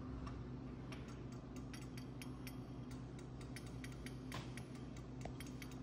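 Light, irregular metallic clicks and ticks, a few a second, as steel parts of a bearing puller setup (threaded rod, nut and strong back) are handled, over a steady low hum.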